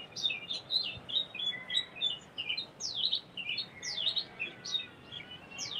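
Small birds chirping: a continuous run of quick, high chirps that slide downward in pitch, several a second and overlapping.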